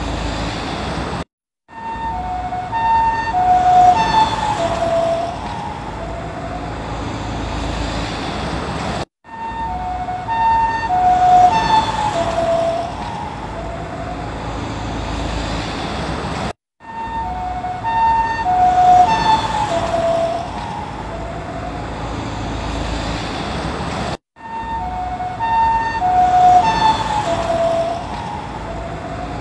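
Japanese ambulance two-tone siren (pii-poo) passing by: the alternating high-low tones grow loud, then drop in pitch as it goes past (Doppler shift) and give way to steady road noise. The same pass repeats four times, each cut off by a brief silence.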